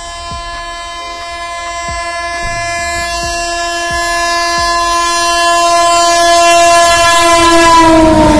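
An Indian Railways electric locomotive's horn sounds one long held note as a Rajdhani Express approaches at speed, growing steadily louder. In the last second the pitch drops as the locomotive passes close by, and the rushing noise of the train comes up at the end.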